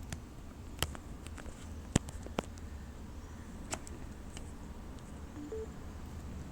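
Handling noises from unboxing: a few scattered sharp clicks and taps, the loudest about two seconds in, over a steady low hum.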